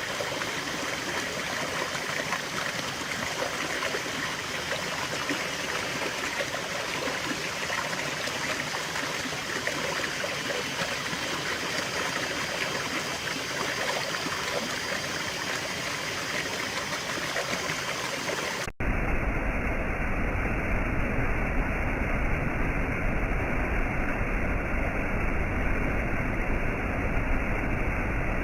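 Steady rushing of a stream or waterfall. About two-thirds of the way in it cuts suddenly to a louder, duller, deeper rushing noise.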